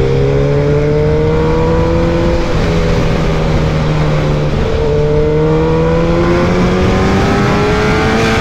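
Suzuki Hayabusa's inline-four engine pulling at road speed, its note climbing slowly with dips about 2.5 s in and near 5 s, over a steady rush of wind.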